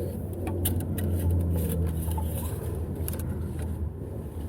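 Ford 7.3 Power Stroke diesel V8 idling with a steady low hum, with a few light clicks over it.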